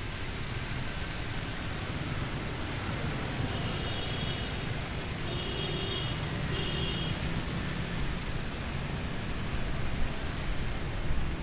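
Fountain jets splashing into the basin, a steady rain-like hiss, over the low rumble of motorbike traffic. Three short high beeps sound around the middle.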